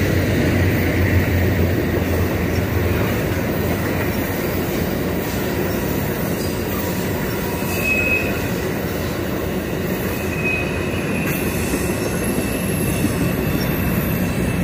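Amtrak bilevel passenger cars rolling past close by, a steady rumble of wheels on rail, while a freight train of covered hoppers runs on the next track. A brief high wheel squeal comes about eight seconds in and again near eleven seconds.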